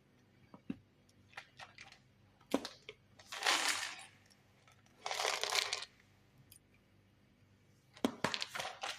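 Whole cloves being handled and added to a saucepan: scattered small clicks, two short rustling bursts a second and a half apart, and a quick run of clicks near the end.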